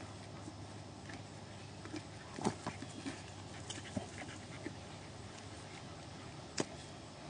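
Two dogs, a husky-type dog and a large black long-haired dog, play-fighting, with scattered short, sharp noises. The loudest come about two and a half seconds in and again near the end.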